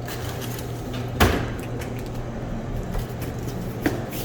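Handling knocks while stocking a snack vending machine: one sharp knock about a second in and a lighter click near the end, over a steady low hum.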